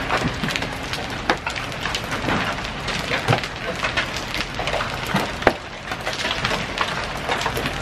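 Steady rain at the tail end of a hailstorm, with many scattered sharp taps of drops and stones landing.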